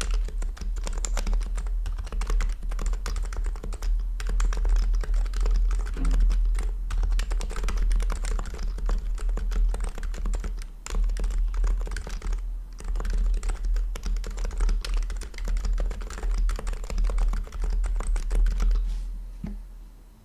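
Continuous fast typing on a Topre-style keyboard built with HHKB Pro 2 rubber domes, Realforce R2 PFU sliders and a stainless steel plate, many keystrokes a second. The typing stops about half a second before the end.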